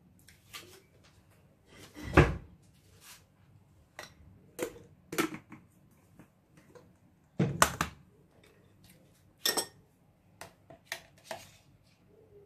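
Kitchen objects being handled and set down: a string of knocks and clatters, the two loudest about two seconds and seven and a half seconds in.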